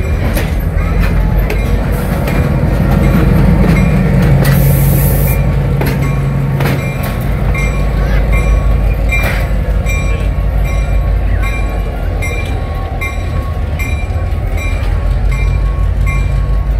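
A passenger train of wooden coaches rolls past close by with wheels clacking over the rail joints, then its diesel switcher locomotive goes by with a low engine rumble and draws away. The engine is loudest a few seconds in, and a brief hiss sounds about four seconds in.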